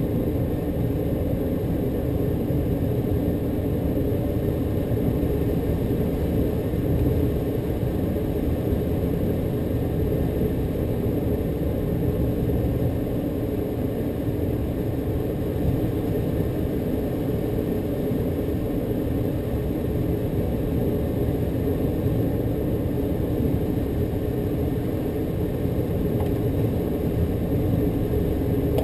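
Steady rush of air over the canopy of a light aircraft gliding with its engine stopped and the propeller standing still.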